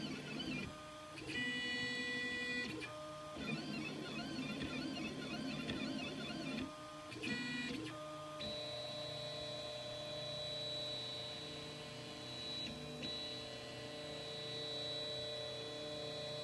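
3D printer at work: its stepper motors whine at pitches that switch every second or so as the bed and print head move. After about eight seconds they settle into a long steady whine with a brief break, over a faint constant fan hum.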